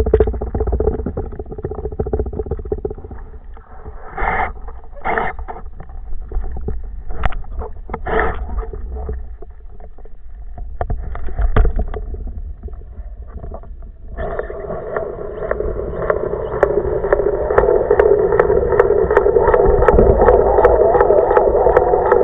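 Muffled underwater noise with a few short knocks. About two-thirds of the way in, a steady, loud motor drone heard through the water starts abruptly and holds, typical of a boat's engine running nearby.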